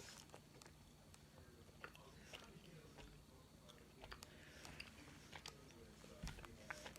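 Faint, soft chewing of a Warheads Chewy Cube candy: scattered small wet mouth clicks at a low level.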